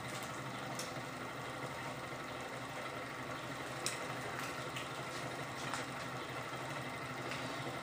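Home-built gamma-type Stirling engine, heated by a vaporizing alcohol burner, running steadily, with a few light clicks scattered through it.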